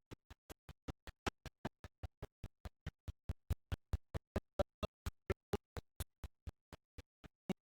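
Rapid, evenly spaced ticking, about five short clicks a second.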